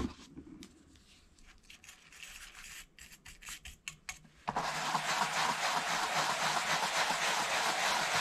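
Soft-bristle brush working saddle soap and water, faint light scratching and dabbing at first, then, about halfway in, steady brisk scrubbing as the brush is rubbed over a leather knife scabbard.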